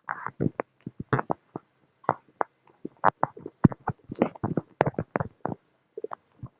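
A hand handling a phone right against its microphone: irregular knocks, taps and short scrapes, several a second.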